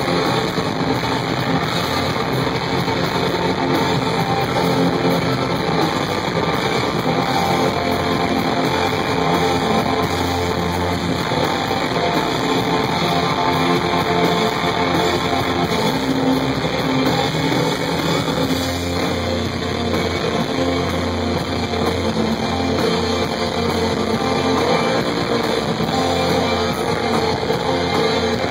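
A live rock band playing continuously, led by electric guitar with bass guitar underneath, heard from the audience.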